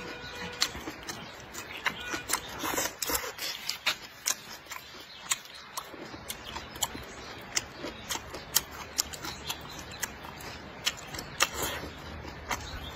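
Close-miked sounds of a man eating with chopsticks: chewing and lip-smacking, full of irregular sharp wet clicks.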